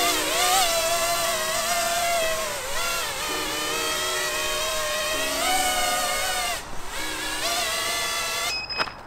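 iFlight Nazgul F5D V2 5-inch FPV quadcopter's motors and propellers whining as it hovers close in, the pitch wavering up and down with the throttle and dipping briefly, over background music. Near the end the whine cuts off suddenly, followed by a sharp click, as the drone is caught and its motors stop.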